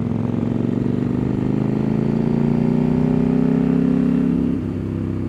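CF Moto 800MT Explore's parallel-twin engine under acceleration, its exhaust note running through a de-cat link pipe fitted in place of the catalytic converter. The pitch climbs steadily for about four and a half seconds, then drops.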